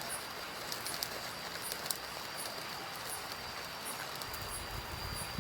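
Outdoor ambience with insects: a steady high drone and short high chirps repeating about once a second over a soft hiss, with a few scattered clicks. A low rumble comes in about four seconds in.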